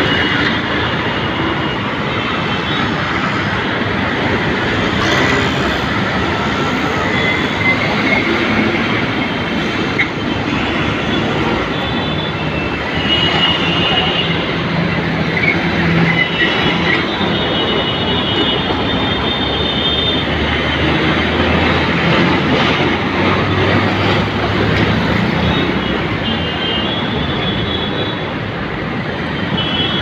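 Heavy road traffic: the engines and tyres of passing auto-rickshaws, trucks, scooters and motorcycles run in a continuous steady din, with short high-pitched tones sounding now and then.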